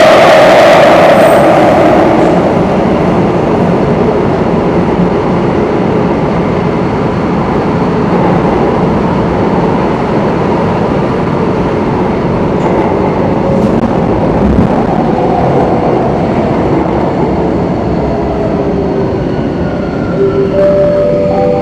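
Singapore MRT train heard from inside the carriage as it runs through a tunnel: a loud, steady rumble of wheels on rails, loudest in the first couple of seconds. Near the end a motor whine comes in, falling slightly in pitch.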